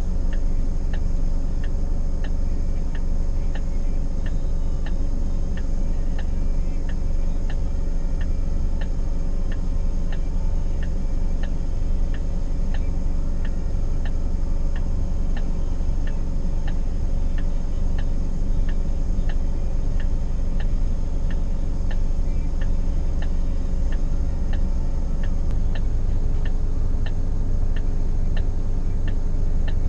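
A car's flasher relay ticking steadily and evenly inside the cabin of a stopped vehicle, over the steady low rumble of its engine.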